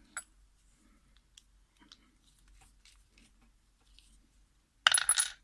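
Faint scattered clicks of a lock and metal tools being handled, then one loud, short clatter of metal near the end.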